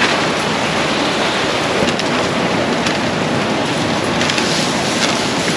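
Steady rush of wind over the microphone while travelling at speed, with no clear engine note.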